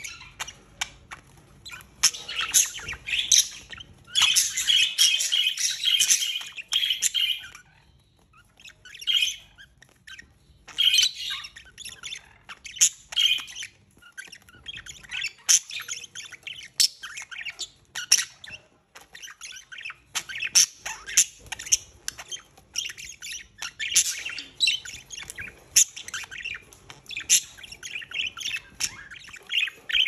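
Budgerigars chattering and squawking while mating: a string of sharp chirps and squawks, with a run of continuous warbling chatter about four to seven seconds in and a few short lulls.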